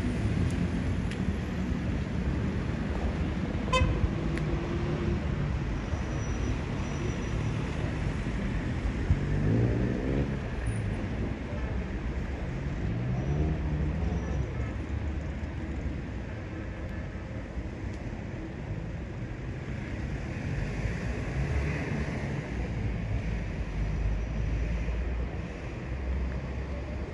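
Town street ambience dominated by road traffic: vehicles running past with a steady low rumble, and a few brief pitched engine or horn sounds.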